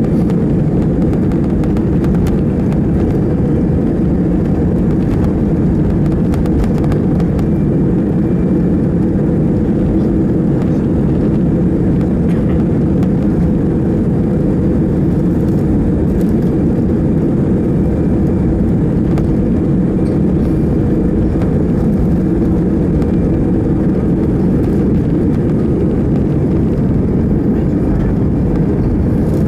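Airbus A319 jet engines running at takeoff thrust, heard inside the cabin over the wing as a steady, loud, deep noise through the takeoff roll and liftoff.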